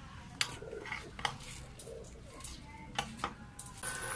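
Metal parts tapped and clinking together in sharp, separate knocks, four of them clearly. Near the end, a steady high hum with a hiss comes in.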